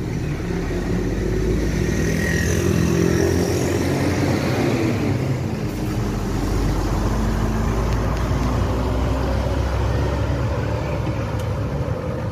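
Diesel coach engine running as a bus pulls away close by, its pitch rising and falling in the first few seconds, then settling into a steady note.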